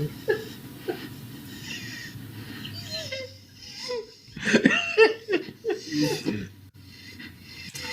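People laughing hard, wheezing laughs coming in bursts, loudest about halfway through.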